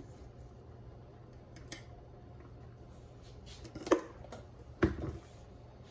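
A spoon knocking against the pot while the rice porridge is stirred: two sharp clinks about a second apart, with a steady low hum underneath.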